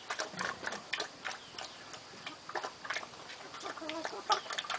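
Pigs eating feed: irregular wet clicks and smacks of chewing.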